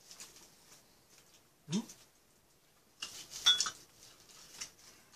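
Soft clicks and crackles of chopsticks lifting seasoned laver sheets off a plate, busiest about three to four seconds in. A short low sound rising in pitch comes once, about a second and a half in.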